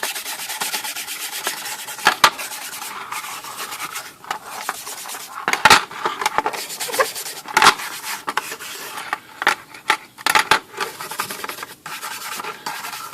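Stiff brush scrubbing oil into a typewriter's metal cover panel, a steady scratchy rubbing with a few sharp knocks, the loudest about 5.5 and 7.5 seconds in.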